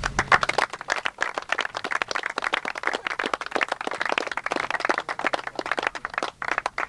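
A small crowd applauding, the separate claps plain to hear; it thins out and stops near the end.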